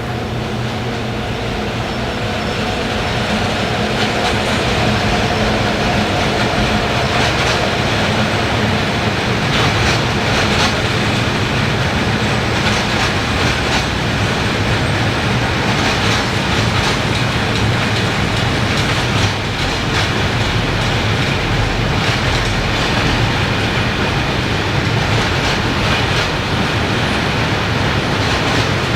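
Freight train rolling past close by: continuous rolling noise of the wagons with the wheels clattering rhythmically over rail joints, building up over the first few seconds and then holding steady.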